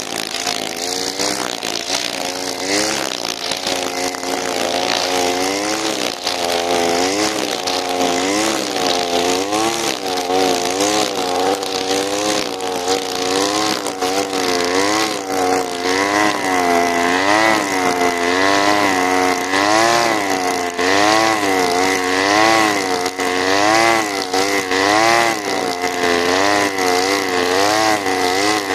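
Alpina Star 55DP two-stroke petrol trimmer running at high revs while cutting tall grass. The engine's pitch dips and recovers about once a second as each sweep of the head bites into the grass and clears it. A thin steady whine joins about halfway through.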